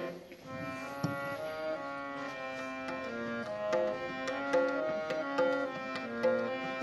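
Harmonium playing a stepwise melody with tabla strokes keeping time: an instrumental passage between sung lines of a Sikh kirtan.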